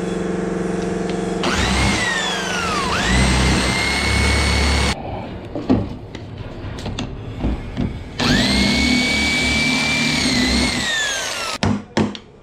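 Handheld electric drill boring into wood: the motor whines up, sags in pitch under load and climbs again, stops, then runs a second time about eight seconds in. Scattered knocks fall between the runs, and a few sharp hammer knocks come near the end.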